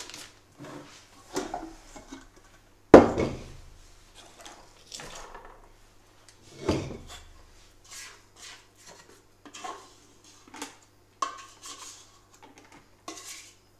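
Stainless steel stand-mixer bowl being lifted off a Cooking Chef mixer and handled, with a loud knock about three seconds in and another near seven seconds, then scattered light clinks and rustles of kitchenware and a plastic piping bag.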